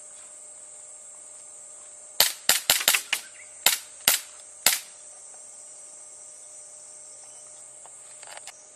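Airsoft gun shots, about nine sharp cracks starting about two seconds in. A quick string of six comes first, then three more spaced about half a second apart.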